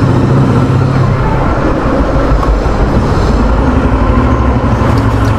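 Royal Enfield Thunderbird 350's single-cylinder engine running steadily as the motorcycle is ridden, heard close up from the rider's seat.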